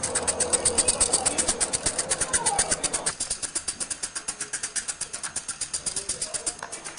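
Rapid, even mechanical ticking from a small tracked robot, about eight ticks a second, with a short falling whine about two and a half seconds in; the ticking softens about three seconds in.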